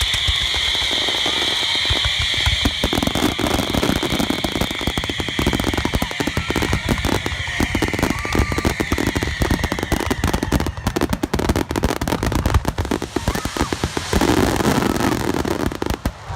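Fireworks bursting at close range in a rapid barrage: dense crackling and popping with low booms, no gaps between bursts, dropping off sharply near the end.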